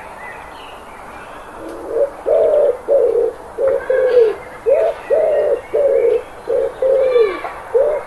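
Feral pigeon (rock dove) cooing: a run of about a dozen low, hollow coos starting about two seconds in. The notes come mostly in short–long pairs, each bending up and then down in pitch. Faint chirps of other birds sound behind.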